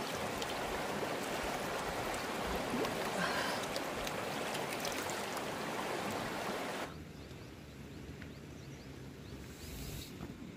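Steady rushing of a flowing river, which drops to a quieter level about seven seconds in.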